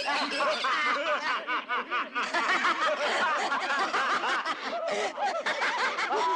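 Cackling laughter: rapid, repeated chuckles from several overlapping voices.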